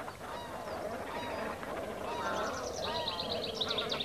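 A flock of geese honking. Single calls come about once a second, then a denser run of higher, quicker calls follows in the second half.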